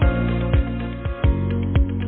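Background music with a steady beat, a bass drum hitting about twice a second under held notes.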